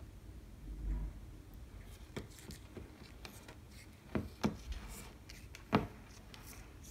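A tortoise's claws clicking and scraping on a hard floor as it walks, a few scattered sharp ticks over faint room tone, the loudest near the end.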